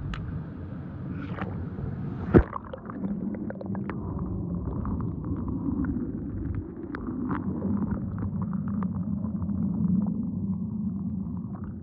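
Churning, bubbling pool water heard with the microphone under water: a muffled rumble scattered with many small crackling ticks of bubbles. A single sharp knock comes about two and a half seconds in.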